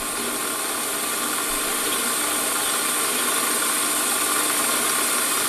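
Warco metal lathe running at about 900 RPM while its tool turns down a 10 mm silver steel bar: a steady machining hiss over the hum of the motor and gearing.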